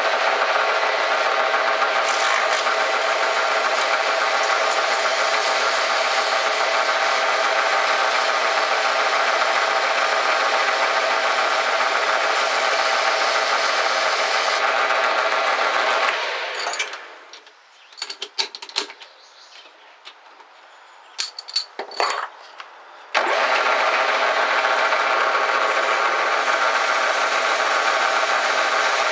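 Small metal lathe running steadily, its motor and spindle making an even whine while a brass workpiece spins in the chuck and is worked by hand. About sixteen seconds in the lathe is switched off and winds down, a few clicks and knocks follow, and about seven seconds later it starts up again at full speed.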